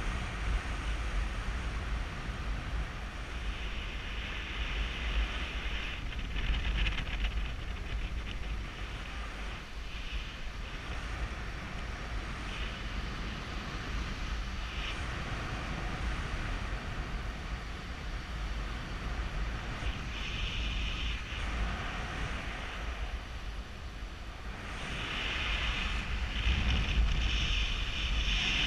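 Wind rushing over a GoPro Hero3's microphone in flight: a steady low rumble with gusts of hiss that grow louder near the end.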